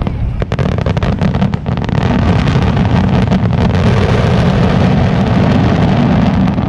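Finale barrage of aerial firework shells: a string of sharp bangs and crackles in the first two seconds, then so many bursts at once that they merge into one continuous loud rumble, easing off near the end.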